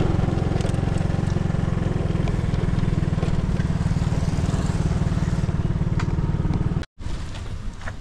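Small motorbike running as it is ridden slowly, with a heavy low rumble of wind on the microphone. The sound cuts off abruptly about seven seconds in, and quieter surroundings follow.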